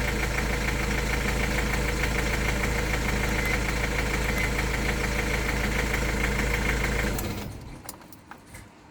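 Jaguar X-Type's 2.0 four-cylinder diesel engine idling with an even diesel knock, then switched off about seven seconds in, running down quickly.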